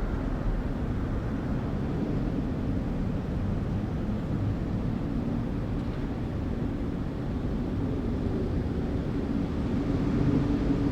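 City ambience: a steady low rumble of distant traffic, with no single event standing out.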